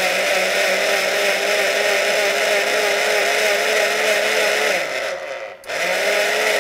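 Countertop blender with a glass jar running at high speed, blending a liquid limeade mix, with a steady motor whine. About five seconds in the motor winds down and stops for a moment, then starts again and runs until near the end.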